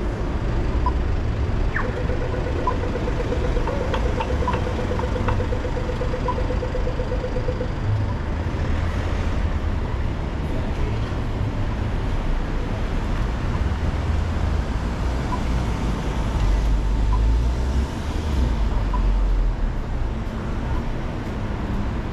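Street traffic: vehicles passing with a steady low rumble that swells and fades. About two seconds in, a rapid pulsing tone sounds for about six seconds.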